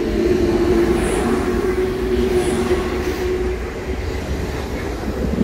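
Z 20500 double-deck RER electric train moving alongside the platform: a low rumble of the train rolling, with a steady electrical hum that fades out a little past halfway.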